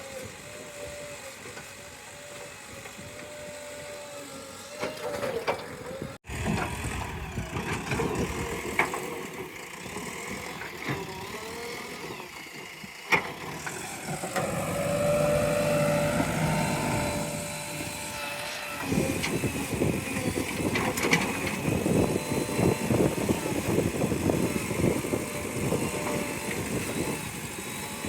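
JCB 3DX backhoe loader's diesel engine running under changing load, with a whine that rises and falls midway and dense rapid clattering in the latter half.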